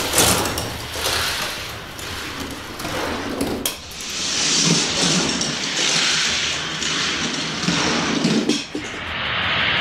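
Diecast toy cars rolling fast down a plastic Hot Wheels race track, a continuous rattling rumble that swells and fades as they run the course, with a few sharp knocks.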